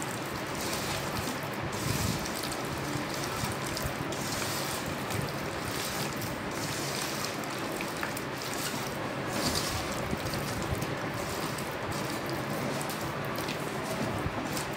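Wet squishing of a hand mixing raw mango pieces through an oily chili and mustard-powder masala in a steel bowl, over a steady background noise.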